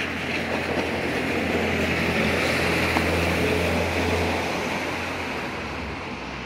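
A van passing on a wet road: a low engine hum and the hiss of tyres on wet asphalt swell, peak about halfway through and fade away as it goes by.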